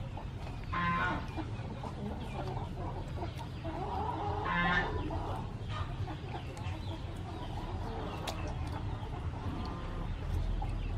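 Hands rinsing squid in a metal basin of water with light splashing, while a chicken calls twice in short clucks.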